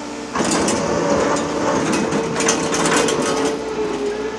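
Liebherr R 930 excavator bucket working earth and stones: a sudden rush of rattling and scraping starts about a third of a second in and lasts about three seconds, over a steady diesel engine hum.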